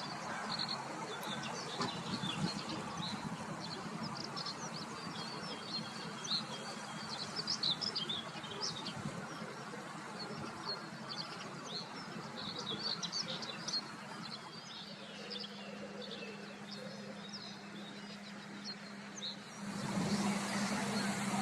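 Small birds chirping and singing over a steady outdoor background. In the last few seconds a low, even engine hum comes in, and it grows louder near the end.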